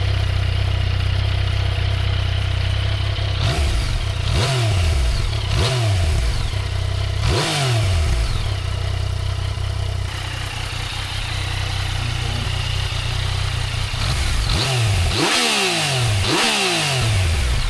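2017 Yamaha XSR900's 847 cc inline three-cylinder idling on its stock exhaust, blipped several times so that the revs jump and fall back to idle, in two groups with a steady idle between them.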